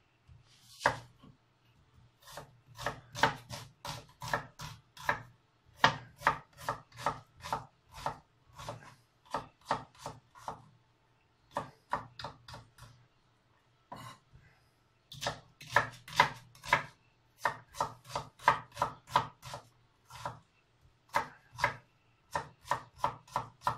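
Kitchen knife chopping an onion on a wooden cutting board: runs of quick, sharp knocks, several a second, broken by a short lull midway.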